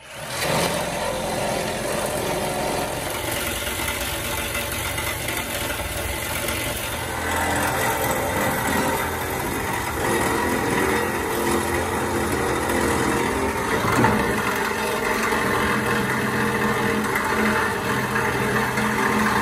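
Angle grinder with a cutoff wheel cutting through steel bed-mount bolts and brackets, running steadily with a brief sharp knock about fourteen seconds in.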